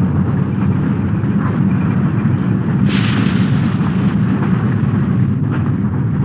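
A steady low rumble with a thin hiss above it, with a couple of faint brief crackles.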